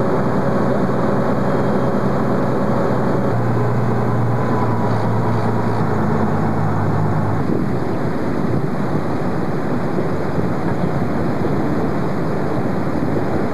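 Fishing boat's engine running under way, with wind buffeting the microphone and water rushing past from the wake. The engine note steps up about three seconds in, shifts again near six seconds, and is lost under the wind and water rush from about halfway through.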